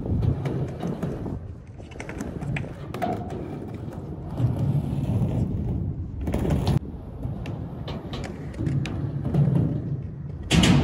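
Skateboard wheels rolling over a concrete bowl: a low rumble that swells and fades as the board carves up and down the walls, with scattered clicks. A loud thump comes near the end.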